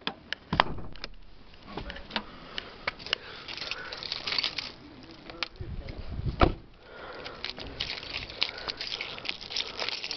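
A car's hood release lever is pulled with a sharp clunk about half a second in. Then come handling rustle and footsteps, a heavier thump about six and a half seconds in, and a run of small metallic clicks from keys being handled near the end.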